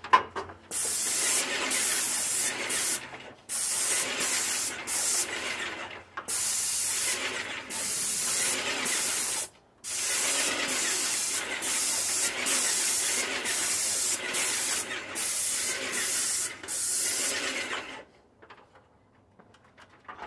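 Avanti airless paint sprayer's gun hissing as it sprays paint, in a run of passes of one to a few seconds, each cut short when the trigger is let off. The spraying stops about two seconds before the end.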